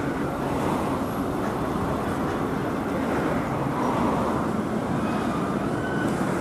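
Steady rumble of traffic with Bombardier Flexity 2 trams running along the street track, as a tram pulls away and another approaches.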